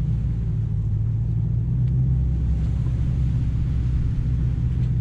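Pickup truck's engine running steadily at low revs, a deep rumble, as it tows the boat trailer up the sand on a strap.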